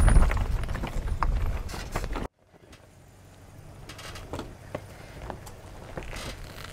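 Lifted Jeep Wrangler JKU crawling over loose rock: a low rumble with crunching and clicking of stones under the tyres, cut off suddenly after about two seconds. After that it is much quieter, with faint scattered clicks of rock under a truck's tyres on a rocky trail.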